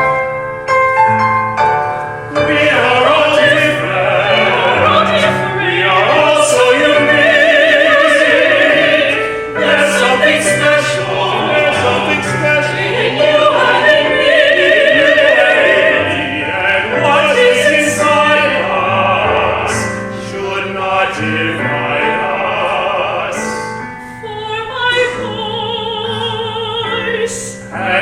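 Operatic singing with strong vibrato, several voices sounding together in harmony. It dips briefly about four seconds before the end, then resumes.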